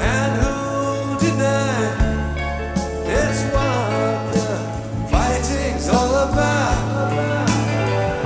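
Live rock band playing a slow ballad: sustained bass and keyboard chords under a lead melody that slides up and down in pitch.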